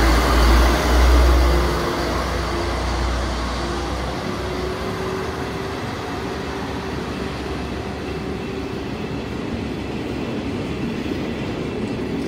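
Train moving off along the platform: a loud low rumble that fades over the first few seconds, with a whine that rises slowly in pitch as it speeds up, over steady rail noise.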